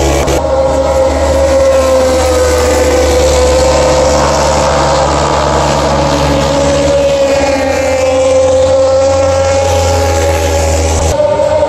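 Racing motorcycle engines running at high revs on the track: a loud, steady engine note that wavers slightly in pitch, with a low rumble underneath.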